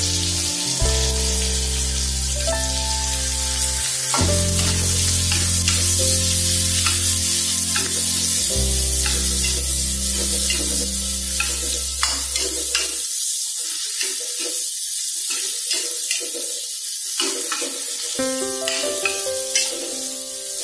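Sliced onion and chili sizzling in hot oil in a wok, with a spatula scraping and clicking against the pan as they are stir-fried. Background music with long held low notes plays underneath and drops out for a few seconds past the middle.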